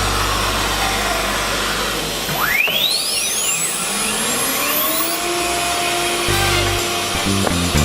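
CNC machining centre running with a hiss. About two seconds in, its spindle whine climbs in pitch, then levels off into a steady tone, like a spindle spinning up to speed.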